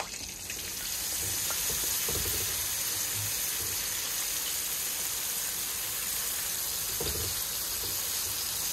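Breaded walleye chunks frying in hot oil in a skillet: a steady sizzle that swells during the first second as the pieces go into the oil, with a few faint knocks of tongs against the pan.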